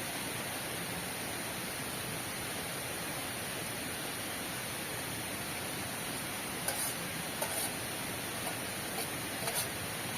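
Steady heavy rain making an even hiss, with a few short sharp taps or clicks in the second half.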